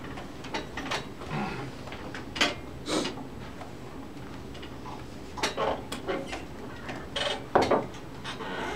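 Scattered clinks, clicks and knocks of small hard objects being picked up and set down on a lab bench, with a few louder knocks.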